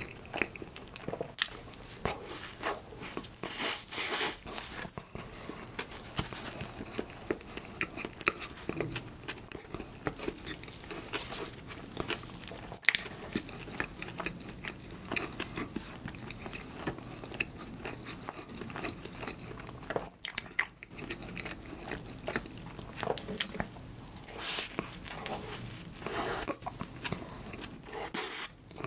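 Close-miked eating of soft bakery bread: bites and steady chewing, with many small wet mouth clicks and smacks.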